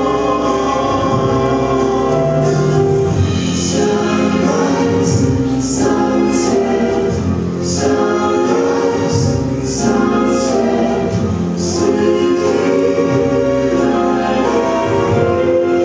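Music: a song sung over instrumental accompaniment, playing without a break.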